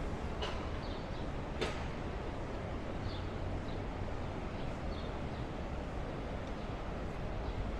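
City street ambience: a steady rumble of traffic along a busy avenue, with a few short high chirps and two sharp clicks in the first two seconds.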